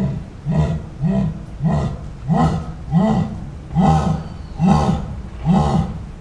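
Jaguar's sawing call: a long run of hoarse, rasping grunts, roughly three every two seconds.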